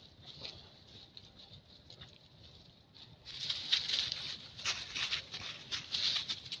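Dry leaf litter rustling and crackling under rhesus macaques moving about on the ground, in irregular patters of little crunches that grow louder about three seconds in as a monkey leaps and walks off over the leaves.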